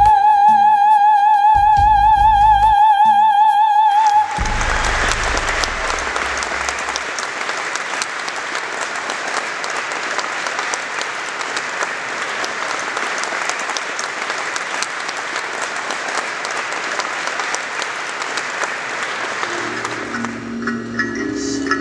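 Music ends on a long held note with vibrato about four seconds in, and an audience breaks into steady applause for some fifteen seconds. Near the end new music with short plucked or mallet-like notes starts up.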